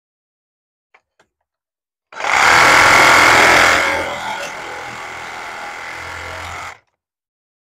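Handheld power tool running for about four and a half seconds, loudest for its first second and a half, then steadier and quieter until it cuts off. Two faint clicks come before it starts.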